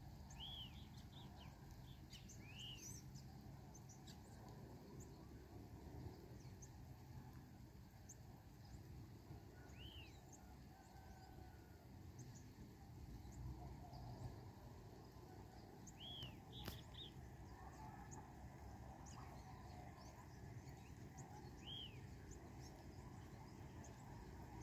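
Faint outdoor ambience: a steady low rumble, with a bird giving short chirps that rise and fall in pitch, about six of them scattered a few seconds apart.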